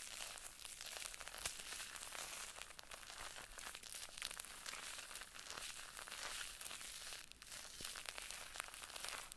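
Close-up ASMR trigger sound: continuous dense crinkling and scratching, a stream of fine crackles and tiny clicks with no let-up.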